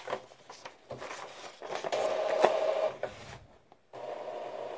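Epson WF-2860 inkjet printer finishing a purge sheet, its mechanism running with a steady whir for about a second mid-way, while the large printed sheet crackles as it is picked up and handled. Clicks come near the start.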